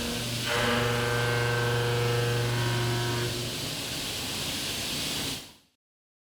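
CNC milling cutter machining a forged C450 steel compressor blade: a steady cutting whine of several held tones over a hiss. It fades out quickly about five and a half seconds in.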